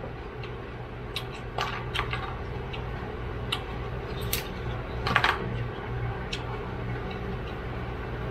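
Steamed blue crab shell being cracked and pulled apart by hand: irregular small cracks, snaps and clicks, the loudest cluster about five seconds in. A steady low hum, likely from a fan running, lies underneath.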